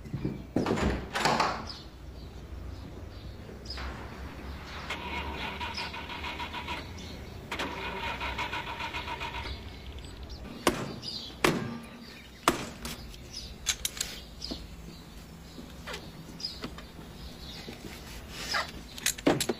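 A small electric motor whirs twice, each time for about two seconds, among scattered knocks and clunks.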